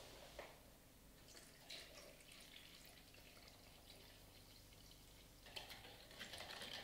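Faint trickle of water poured from a plastic jug into a plastic measuring jug, filling it up to a measured mark, with a couple of small plastic clicks.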